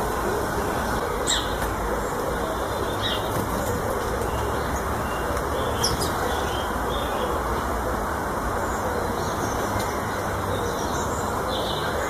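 Steady low rumble of distant road traffic, with a few faint, short bird chirps scattered over it. A brief flutter of wings about halfway through as a blue tit lands on the feeder.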